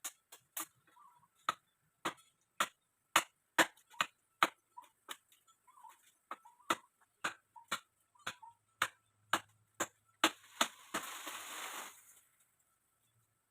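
A run of sharp knocks, about two a second at uneven spacing, followed near the end by a rushing hiss lasting about a second and a half.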